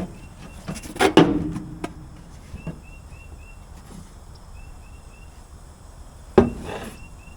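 Knocks and clatter from the removed, blown trailer suspension airbag being handled and turned over: a sharp knock with a short rattle about a second in, and another near the end. Short high chirps come in small runs in between.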